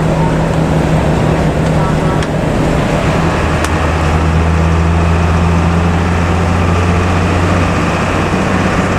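Heavy bus engine and road noise: a steady, deep drone that grows stronger about three seconds in.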